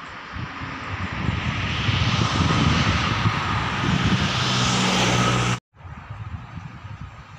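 Engine drone growing steadily louder, with a low steady hum under a rising hiss, cut off abruptly about five and a half seconds in.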